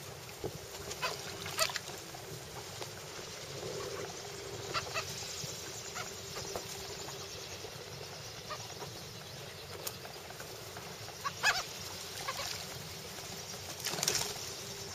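Gulls calling in short, harsh cries over a steady hiss, several times, with the loudest calls about a second and a half in, around eleven seconds in, and near the end.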